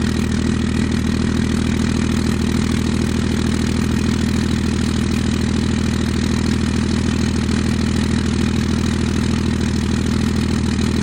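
Ram 2500's Cummins inline-six turbodiesel idling steadily and loudly soon after a cold start in freezing weather.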